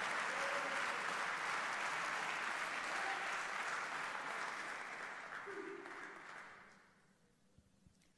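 Audience applause: many hands clapping steadily, then dying away and fading out about seven seconds in.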